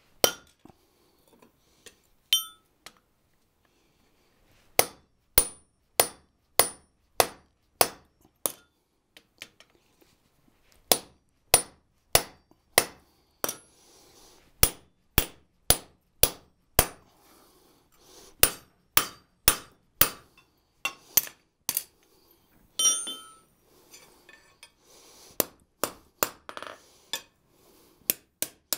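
Hand hammer striking hot steel on an anvil in runs of about one and a half to two blows a second, with short pauses between runs, as a tong rein is forged. A couple of ringing metal clinks, near the start and about two thirds of the way in.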